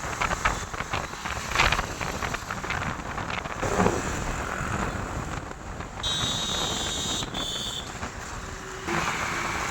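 Wind rushing over the microphone and road noise from a moving vehicle, with occasional knocks. About six seconds in, a high-pitched tone sounds for about a second, then once more briefly.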